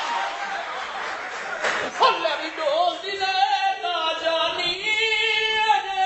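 Audience noise, then from about two seconds in a man singing long, held, wavering notes.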